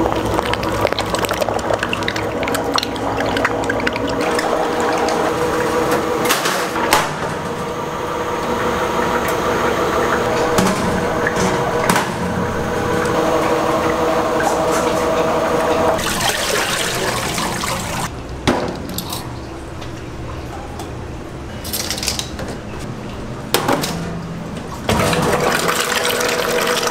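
Rice-cake extruding machinery running with a steady hum and a wash of rushing, watery noise, with scattered clicks and knocks. The sound changes abruptly a few times.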